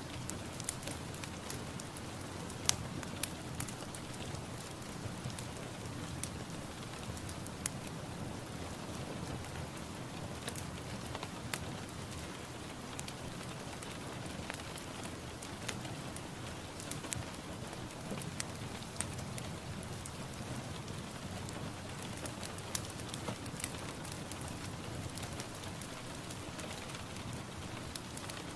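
Steady rain falling, with many scattered drop ticks pattering over a constant hiss.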